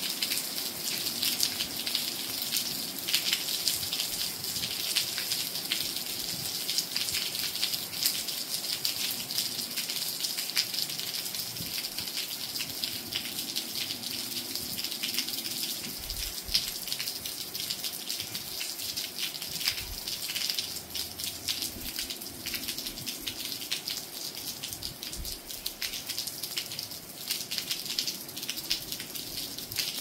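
Steady rain falling: a dense even hiss with many close raindrop ticks.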